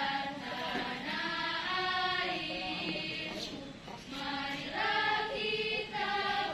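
A choir of voices singing a slow song in unison, with long held notes.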